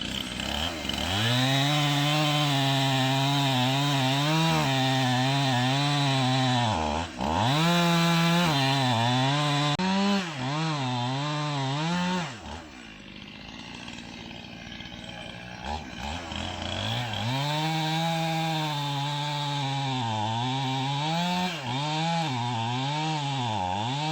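Chainsaw running at high revs while cutting through a log, its pitch wavering as the chain loads up and recovers in the cut. About halfway through it drops to a lower, quieter run for a few seconds, then revs up and cuts again.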